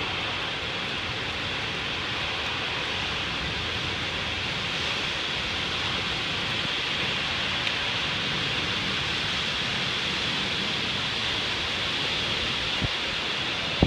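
Heavy wind-driven rain in a severe thunderstorm: a steady rushing hiss of rain, with gusts rumbling on the microphone.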